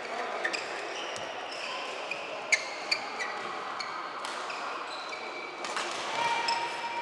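Badminton rackets striking a shuttlecock in a rally, several sharp hits a second or so apart, with sports shoes squeaking in short high chirps on the court floor. Voices carry in the background.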